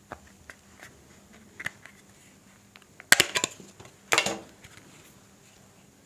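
Small plastic keypad phone being handled as its back cover is opened: faint ticks of fingers on plastic, and two sharp snaps about three and four seconds in.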